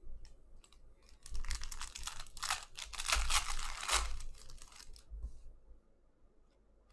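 Foil wrapper of a Panini Prizm basketball card pack being torn open and crinkled by hand: a dense crackling rustle that starts about a second in and lasts about three seconds, then dies down to light handling.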